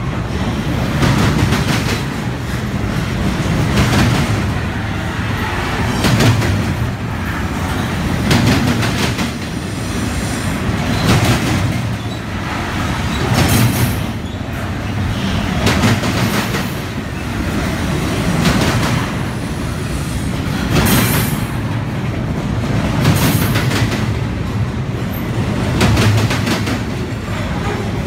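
Double-stack container well cars of a Union Pacific freight train rolling past at close range. Steel wheels rumble steadily on the rails, with a sharp clack of wheelsets over the joints about every two and a half seconds.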